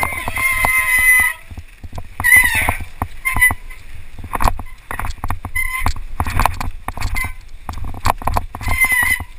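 Mountain bike rattling and knocking over rough rocky ground on a fast descent, with the brakes squealing in short high-pitched bursts several times, the longest squeal at the start.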